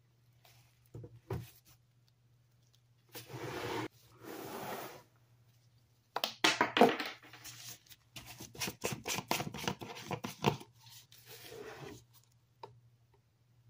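Plastic laundry-detergent jugs and their caps being handled: two scraping rustles, then a screw cap twisted off with a rapid run of sharp clicks and scrapes, loudest about a second into the run. A faint low hum underneath.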